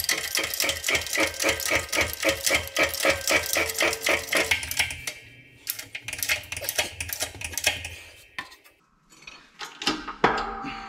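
Hand-pumped hydraulic shop press pressing a tapered wheel bearing onto a Dana 44 rear axle shaft: quick clicking strokes, about five a second, with a second shorter run of clicks midway. Near the end comes one sharp clunk with metallic ringing, the last clunk typical of the bearing seating against the shaft.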